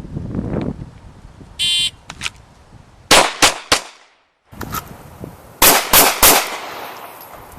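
A shot timer beeps once, then a pistol fires three quick shots about a third of a second apart, the opening string of a three-round draw-and-fire drill. After a brief drop-out, three more shots follow at the same pace, ringing on after the last.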